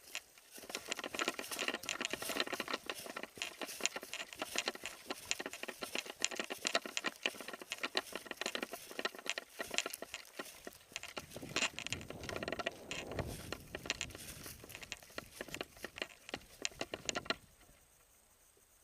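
Hurried, irregular footsteps with gear rattling and rustling as a player moves quickly, stopping abruptly near the end.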